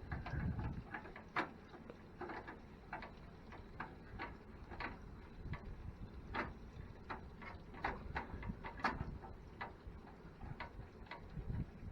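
Irregular light clicks and taps of a screwdriver and screws working on a PC case's side, a few per second with some louder ones.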